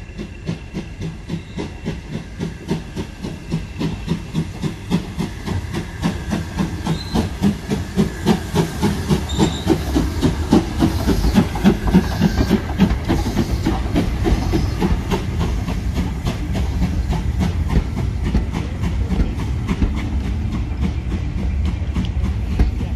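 Steam tank locomotive passing close by with regular exhaust chuffs and hissing steam, growing louder as it approaches. Once the engine is past, about twelve seconds in, the passenger carriages follow with a steady rumble and wheels clicking over the rail joints.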